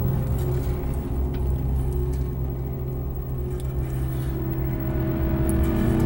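Dark ambient drone soundscape: a deep, steady low drone with several held tones, growing louder near the end as more tones come in.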